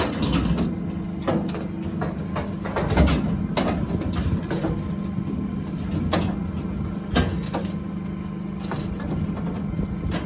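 A steady low motor hum, like an idling engine, with irregular sharp knocks and clatters every second or so.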